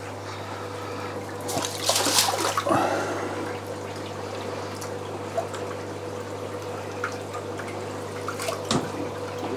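Water splashing and trickling as a large fish net is worked down into a big aquarium, loudest in a burst about two seconds in, over a steady low hum.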